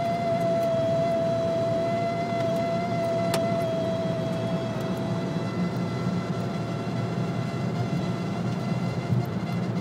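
A steady, high squeaking tone from the dashboard of a BMW E91 3 Series at motorway speed above 140 km/h, over constant cabin road and wind noise. The tone weakens about halfway through.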